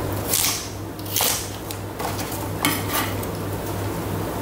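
Kitchen knife chopping a carrot on a plastic chopping board: a handful of separate knocks and scrapes of the blade on the board, over a low steady hum.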